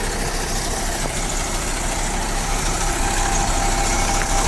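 Bus engine idling steadily, with a faint steady whine that comes in about three seconds in.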